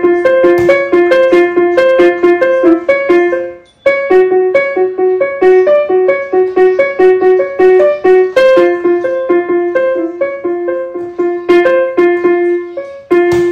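A child playing a Yamaha Arius digital piano: a quick repeated figure that alternates mainly between two notes, breaking off briefly about four seconds in and again near the end.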